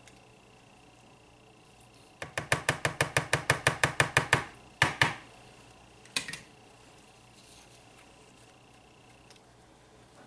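Essential oil bottle being emptied out over a plastic mixing bowl: a rapid run of about fifteen even knocks lasting about two seconds, then two single knocks.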